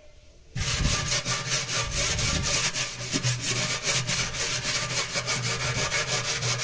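Steel scrubber rubbing rapidly back and forth on a stainless steel sink, scouring off hard-water scale with a cleaning paste. The scrubbing starts about half a second in.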